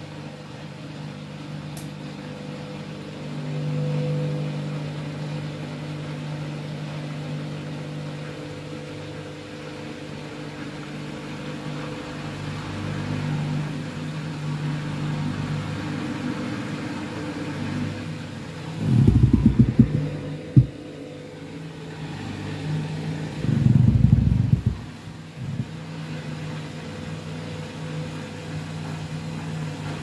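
Candy front-loading washing machine in its rinse, its motor humming steadily as it turns a drum holding a high level of water and an overloaded wash. A little past halfway come two louder low rumbling bursts as the drum churns the wet load.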